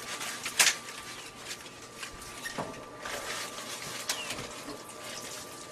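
Leafy frogwood stems rustling and crackling as they are bent and broken by hand into a cooking pot, with a sharp click about half a second in and another about four seconds in.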